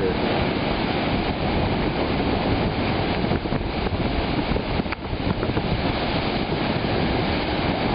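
Breaking lake surf mixed with wind noise on the microphone, making a steady rushing noise.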